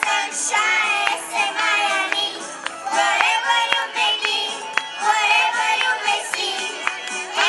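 Young children singing a song in English together, with musical accompaniment and a regular beat.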